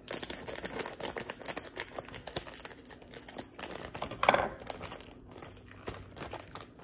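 Plastic Haribo gummy-candy bag crinkling and rustling as it is handled and cut open with scissors, with a louder rustle about four seconds in.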